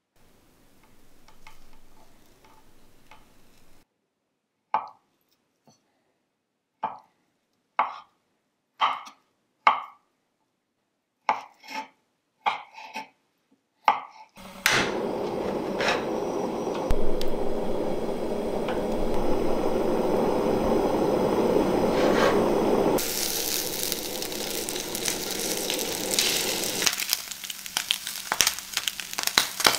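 About ten sharp, separate chops of a chef's knife through luncheon meat onto a wooden cutting board, roughly a second apart. Then a sudden, loud, steady sizzle of luncheon meat slices frying in a nonstick pan. Near the end a spatula scrapes and taps against the pan among the sizzling.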